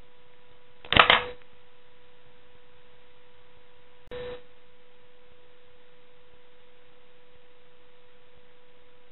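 A steady pure tone with a fainter overtone above it, broken by a short loud burst of noise about a second in and a weaker one about four seconds in.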